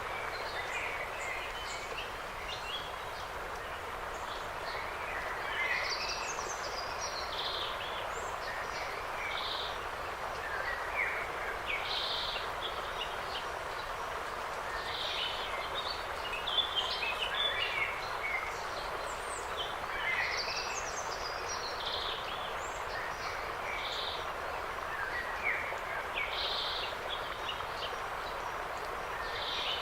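Woodland birds chirping and singing in short scattered phrases over a steady, even rushing noise of the kind wind makes.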